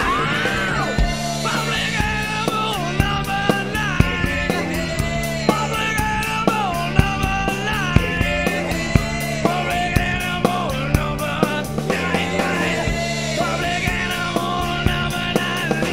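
Acoustic drum kit played along to a rock backing track: kick and snare hits and steady cymbal strokes over a repeating bass line and a bending lead melody.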